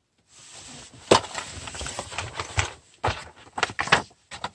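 A cardboard mailer box is opened by hand: cardboard scrapes and rustles, with a sharp snap about a second in as the lid comes free. Near the end come a few quick crinkles of a paper sheet being lifted out.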